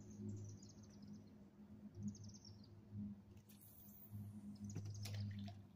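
Quiet evening outdoor ambience: short, rapid high-pitched chirping trills from small animals, repeating every couple of seconds over a low steady hum.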